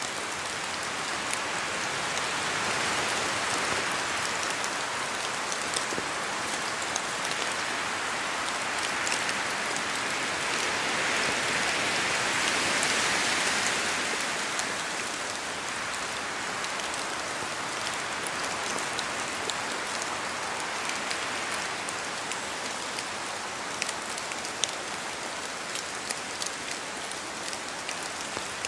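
Steady rain in a forest, with drops falling from the trees; many separate drops tick through an even wash of rain. The wash swells louder twice in the first half.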